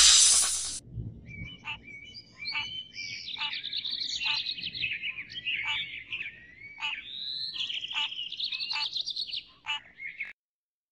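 A loud whoosh that dies away in the first second, then birds chirping and trilling, with short sharp calls repeated every second or so. It stops abruptly about a second before the end.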